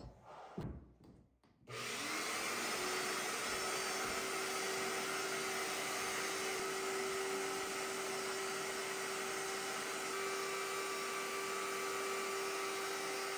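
Shop vacuum running, its hose being worked over a person's dusty clothes. It starts suddenly about a second and a half in, and its whine rises briefly, then holds steady.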